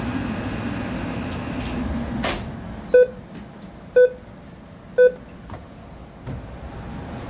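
Merrychef speed oven running with a steady hum that cuts off with a click about two seconds in, followed by three short electronic beeps one second apart from its control panel. The oven is powering and responding again after its display unit was replaced.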